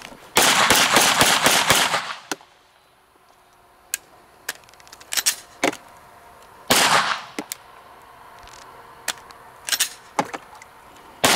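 Glock 17 Gen 3 9mm pistol firing: a quick string of about seven shots, then a few single shots several seconds apart with lighter clicks between them. The pistol is coated in dirt and is having a couple of malfunctions.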